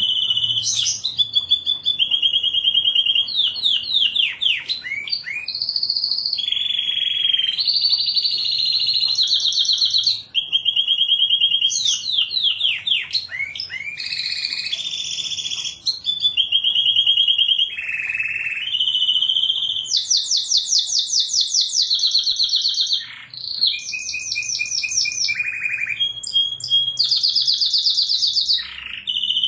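Domestic canary singing without pause: a long song of fast trills and rolls, each run of quick repeated notes held for a second or two before switching to a new one, some sweeping up or down in pitch. The song breaks off briefly only a few times.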